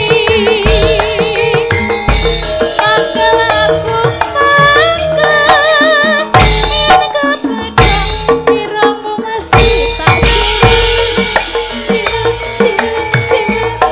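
A Javanese sinden singing with vibrato into a microphone over a gamelan ensemble, with hand-drum (kendang) strokes keeping a steady beat.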